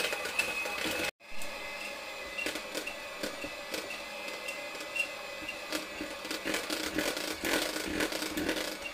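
Electric hand mixer running, its beaters whipping butter and cooked custard into a buttercream: a steady motor whine with light ticking from the beaters in the bowl. The sound cuts out completely for a moment about a second in.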